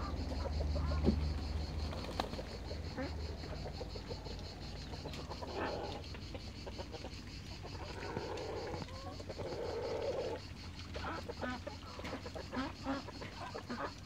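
Domestic fowl calling and clucking in a backyard, in a few short bouts, with a run of short, sharp sounds near the end.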